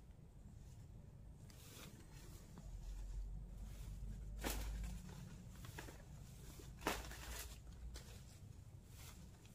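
Leafy tree branches rustling as they are pulled and shaken by hand, with a few sharp snaps of twigs or branches, the loudest about four and a half and seven seconds in, over a low rumble for a couple of seconds.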